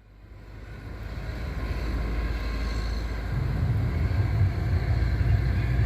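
Vehicle running, a steady low rumble with road and wind noise that builds over the first couple of seconds and grows heavier about three seconds in.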